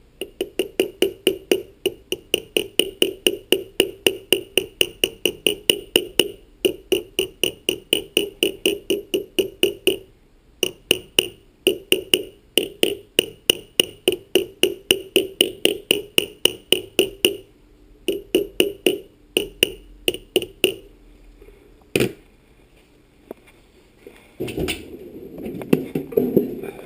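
Rapid, even hammer taps on a metal part of a refrigerator condenser fan motor, about three a second, each ringing briefly at the same pitch. They come in long runs with short pauses, slow to a few single taps, and end in a rougher scraping-and-knocking stretch. The taps are plausibly seating the oiled end cap back onto the motor.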